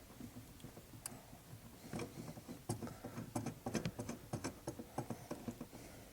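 New brake stoplight switch being threaded by hand into its bracket at the brake pedal: quiet, irregular clicks and small scrapes of the switch's threads and fingers on plastic and metal, coming more often after about two seconds.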